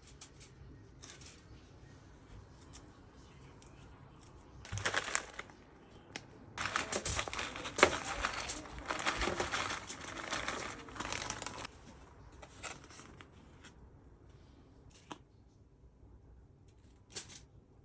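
Aluminium foil crinkling as it is handled and folded: a short burst about five seconds in, then a longer stretch of crinkling with one sharp crackle, followed by faint scattered clicks.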